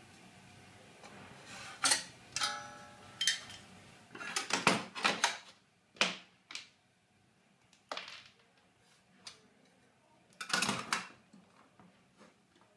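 Scattered clicks, taps and short scrapes of a steel scribe and combination square being set against and drawn along thin steel trunking lid. One knock about two and a half seconds in is followed by a brief ringing tone.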